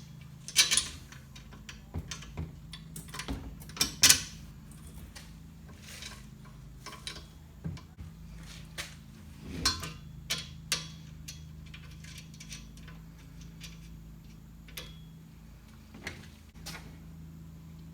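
Scattered metal clicks and clinks as cap screws and nuts are fitted by hand to a steel table-saw stand, over a steady low hum.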